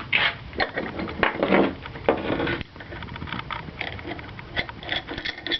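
Handling noise from tools and hardware: irregular light clicks and taps, with a couple of louder rustling scrapes early on as metal parts are picked up and moved.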